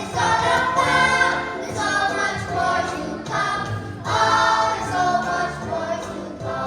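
A choir singing a Christian song with instrumental accompaniment, in phrases with short breaks near the start and about four seconds in.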